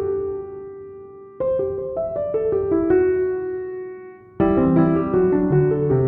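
Background piano music: gentle phrases of decaying notes, each starting again about every three seconds.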